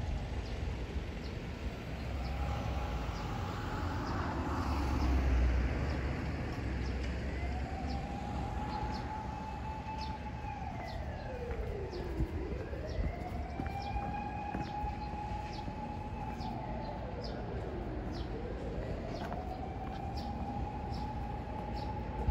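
Emergency vehicle siren wailing in slow cycles: each rises, holds a steady high note for a few seconds, then slides down, about every six seconds. A low rumble swells about four to six seconds in.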